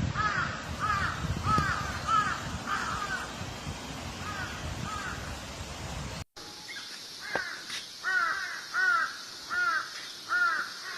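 Crows cawing in runs of harsh, evenly spaced caws, about two a second. About six seconds in, the sound cuts to a second recording with louder, clearer caws; the first part carries a low rumbling background.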